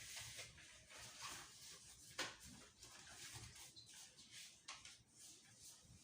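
Near silence: room tone with faint scattered rustling and a few soft knocks.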